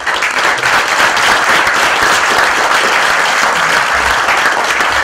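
An audience applauding, the clapping starting all at once and holding steady.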